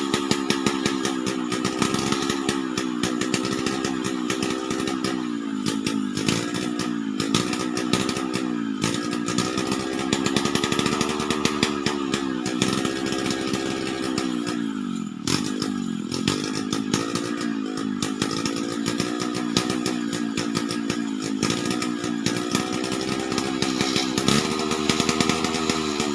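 Two-stroke chainsaw running hard, its engine pitch repeatedly rising and falling, with a sharp drop about fifteen seconds in, as it bogs under load and revs back up while cutting timber.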